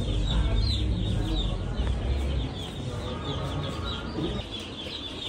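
Many baby chicks peeping together, a constant chatter of short, high, falling peeps. A low rumble runs under the first two seconds or so.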